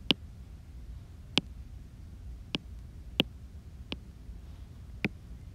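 Sharp single taps on an iPad touchscreen, about seven of them at uneven spacing, over a low steady hum.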